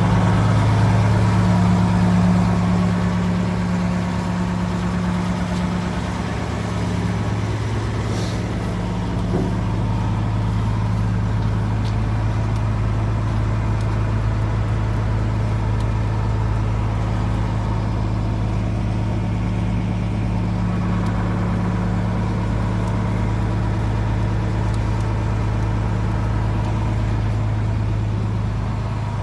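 Diesel engine of a Demag DF-140 C asphalt paver running steadily at a constant speed, a deep even hum that eases slightly a few seconds in and then holds.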